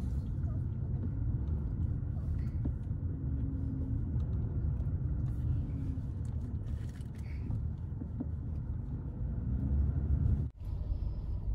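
Steady low rumble of a car's engine and tyres heard from inside the cabin while driving slowly, with faint voices now and then. The sound drops out for an instant near the end, then the rumble resumes.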